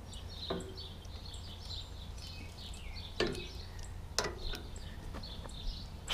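A few sharp clicks from a ratchet wrench turning a bolt on a New Holland 474 mower's wobble box, sounding crunchy from dirt packed into the threads, as the mechanic suspects. Birds chirp throughout.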